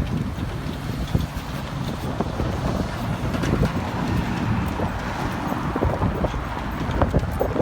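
Wind buffeting the phone's microphone: a loud, rough, low rumble that rises and falls with the gusts.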